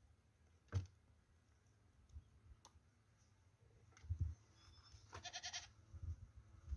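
A sharp click a little under a second in, then a few faint knocks, and a short, pulsing animal bleat about five seconds in.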